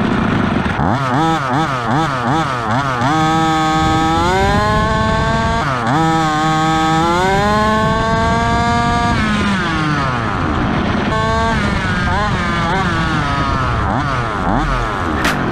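Stock HPI Baja 5B 1/5-scale RC buggy's small two-stroke petrol engine revving under throttle on a top-speed run, heard from a camera on the car's chassis. The pitch blips up and down at first, climbs steadily in two long pulls about three and six seconds in, then blips again before cutting off suddenly at the end.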